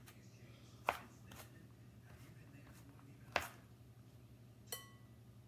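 Kitchen knife chopping diced carrots on a plastic cutting board: a few separate sharp knocks, the loudest about three and a half seconds in. A last click near the end rings briefly.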